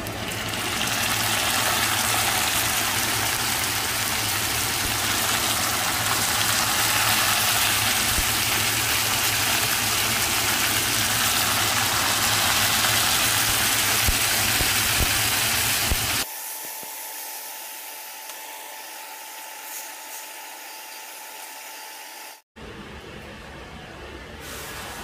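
Marinated beef slices sizzling loudly in a hot frying pan as they are laid in by hand. About two-thirds of the way through, the sizzle gives way to a much quieter steady hum with a faint whine, with a brief dropout near the end.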